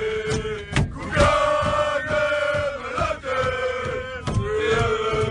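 A group of men chanting a football chant in unison, holding long sung notes that step up and down, over a steady low beat.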